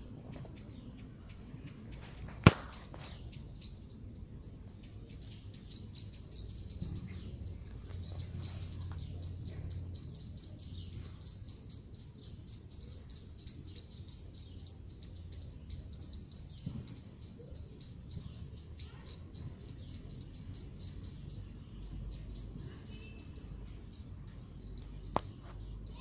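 High, fast-pulsed chirping from a small animal that runs on without a break and swells in the middle, with a sharp click about two and a half seconds in and a fainter one near the end.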